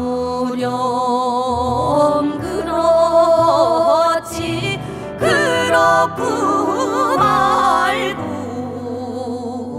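Korean folk song arranged for three vocal parts and piano: several voices sing in harmony with wide, wavering vibrato and sliding notes over piano accompaniment. The sound thins and softens a little near the end.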